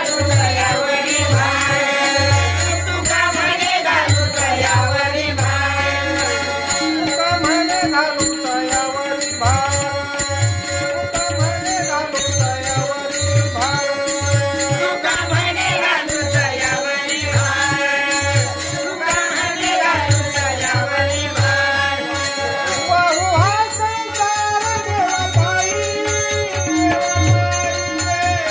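Marathi devotional bhajan singing: voices carrying a melody over a steady drum beat, with small cymbals jingling along.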